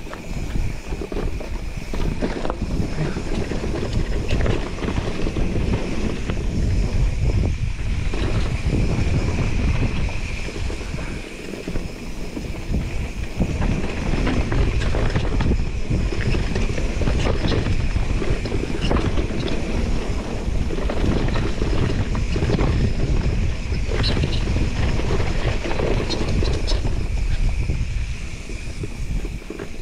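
Wind buffeting the microphone of a mountain bike on a fast downhill dirt-trail run, over the rattle and knocks of the bike on rough ground. A faint steady high tone runs underneath.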